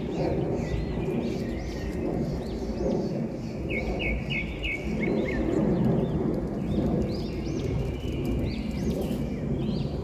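Birds chirping: short arching chirps repeated throughout, with a quick run of four brighter notes about four seconds in, over a steady low rumble of background noise.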